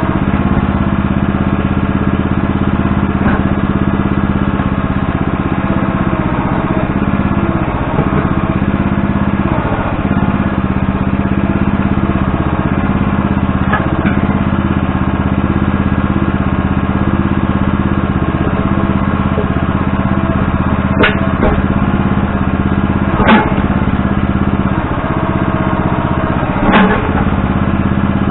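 Backhoe engine running steadily while digging, with three sharp knocks in the last few seconds.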